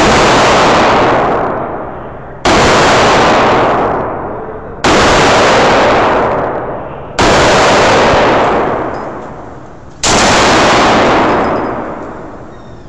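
Five single shots from a Beretta M9 9mm pistol, fired slowly about two and a half seconds apart, each very loud and ringing out in a long echo off the walls of an indoor range.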